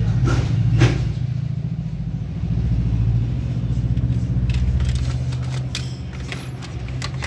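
An engine running steadily at idle, with a few short clicks over it.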